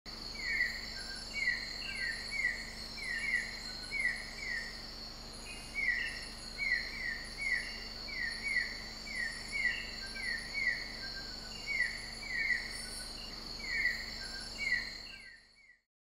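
Night chorus of insects: a steady high-pitched drone, with short falling chirps repeated about twice a second, often in pairs. The chorus fades out near the end.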